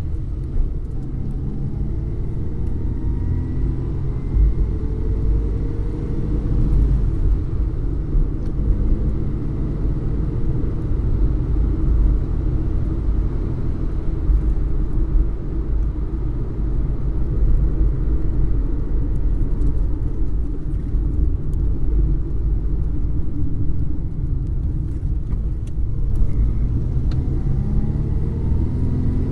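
Car engine running, heard from inside the cabin: a steady low rumble, with the engine's pitch shifting a little near the start and again near the end.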